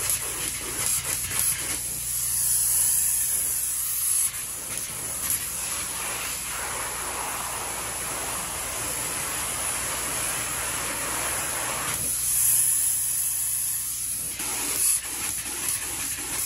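Spray foam gun hissing steadily as it sprays foam insulation into floor joist bays, its tone shifting a couple of times.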